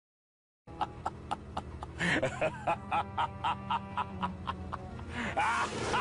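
Under a second of silence, then a quirky music cue starts: sustained low notes under a steady ticking beat of about four strokes a second, with short voice-like cries about two seconds in and again near the end.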